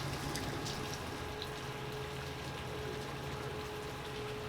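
Steady hum of a sport-fishing boat's machinery with a wash of water, and a thin steady whine that comes in about a second in.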